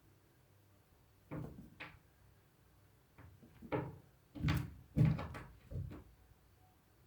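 A series of short knocks and bumps in small clusters, the loudest pair about four and a half to five seconds in.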